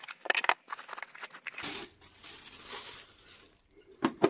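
Plastic packaging bag crinkling and rustling as it is pulled off a foam-packed item, dense at first and then softer, with one sharp knock near the end.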